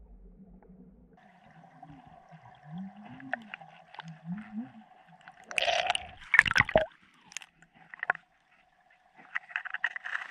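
Water heard through an underwater camera: a steady low hum with a few wavering low tones, then loud gurgling and splashing bursts about halfway through as the camera nears the surface among bubbles, and a shorter run of them near the end.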